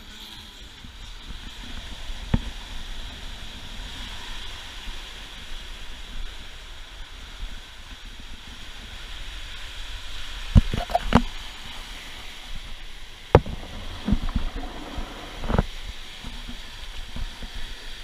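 Steady rush of water from a sailing catamaran moving fast through rough seas, its wake churning off the stern. Several sharp thumps break through, the loudest about ten and thirteen seconds in.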